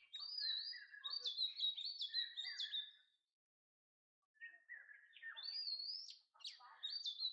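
A songbird singing: two phrases of quick, sliding chirps and whistled notes, with a pause of about a second between them.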